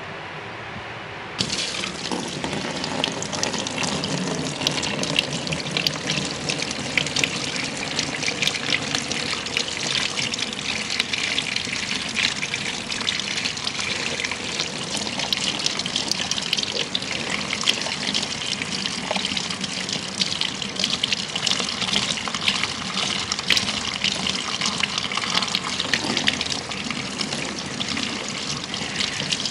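Handheld shower sprayer running, its water spraying onto hair and into a shampoo basin during a hair rinse. It starts suddenly about a second and a half in and keeps up a steady, crackly hiss.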